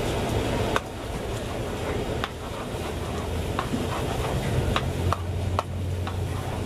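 Metal spatula stirring and scraping flat rice noodles in a large wok of char kway teow, with sizzling and sharp metal clinks against the pan every second or so, over a steady low hum.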